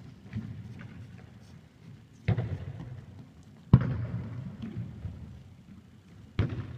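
A football being kicked in an echoing sports hall: three sharp thuds, about two, three and a half, and six and a half seconds in, over the scuffle of players' footsteps on the hard floor.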